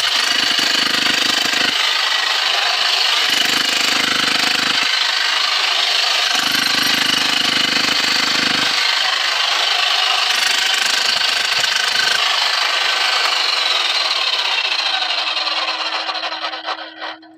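Hand-held rock drill, the miners' 'hammer', drilling into tunnel rock: a loud, steady noise that fades and stops just before the end.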